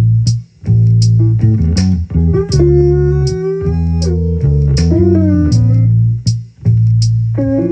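Instrumental music: electric bass playing low held notes under a synthesizer whose pitched lines glide up and down, with a short high tick recurring at an even pace.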